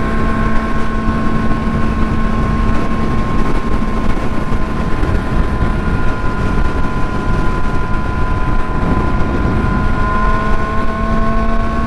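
Yamaha R6 sport bike's inline-four engine running at a steady highway cruise, its note holding nearly constant with a slight dip about three-quarters of the way through. Heavy wind rush on the helmet-mounted microphone sits under it.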